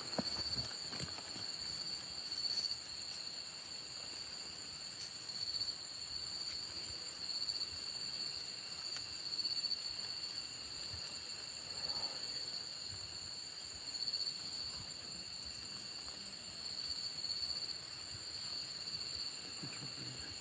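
A chorus of crickets trilling steadily at two high pitches, with faint rustling of hands and clothing close by.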